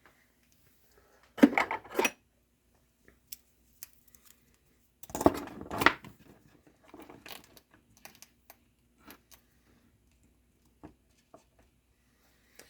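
Small tools and parts being handled on a workbench: two louder clattering bursts, about one and a half seconds in and again about five seconds in, then scattered light clicks and taps.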